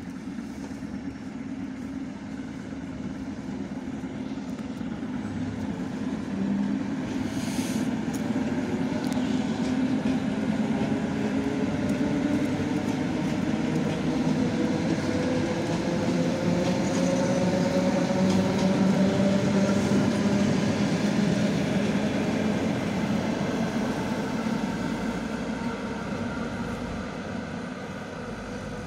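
Six-car ER9M electric multiple unit passing at low speed, its traction motors giving a whine that climbs steadily in pitch as the train gathers speed. The sound grows louder to a peak about two-thirds of the way through, then fades as the train moves off.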